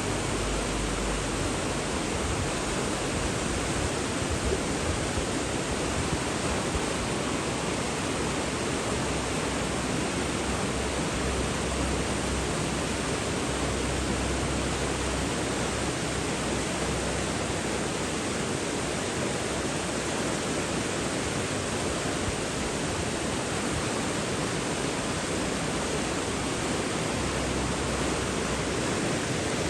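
Rushing water running steadily, a dense even hiss like a waterfall or fast stream. A deep low rumble comes and goes underneath.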